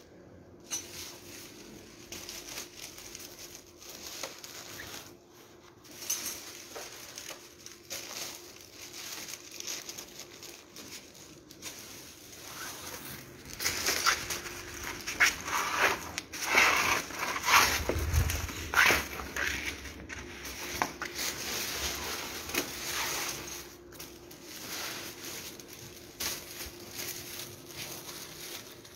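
Kites being picked up and stacked by hand, their sheets crinkling and rustling in irregular bursts, busiest in the middle stretch, with one dull thump partway through.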